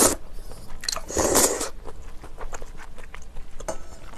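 Korean glass noodles (dangmyeon) slurped up at the very start and again about a second in, then chewed with small wet clicks of the mouth.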